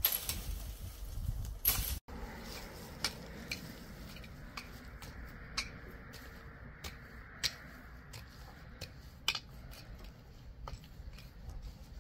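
A garden rake dragged through dry, stony soil: a scratching rasp with scattered sharp clicks as the tines hit stones. In the first two seconds, the louder crackle and rustle of dry dead vines being pulled down.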